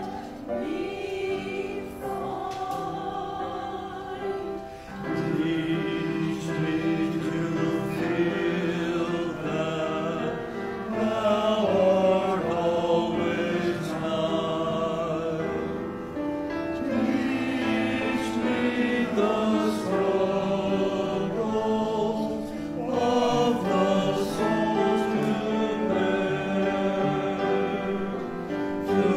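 Church choir of men's and women's voices singing together, in sustained phrases with short breaks between them.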